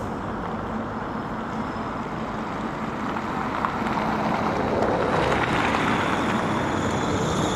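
Road traffic noise: a steady rush with a low hum, growing a little louder about halfway through.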